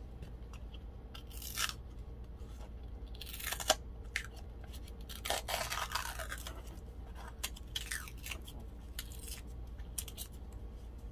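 Plastic glitter jar being opened by hand: the screw cap comes off and the printed seal over its mouth is peeled and torn away, giving scattered crinkling, tearing and scraping noises with a sharp click about three and a half seconds in.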